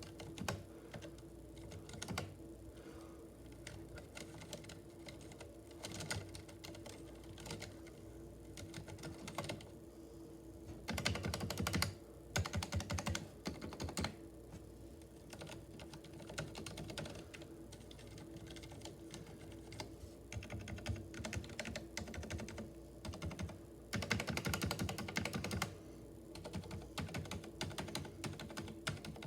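Ducky One 2 Mini mechanical keyboard with Cherry MX Silent Red switches being typed on: scattered keystrokes, with two fast flurries about eleven seconds in and again about twenty-four seconds in.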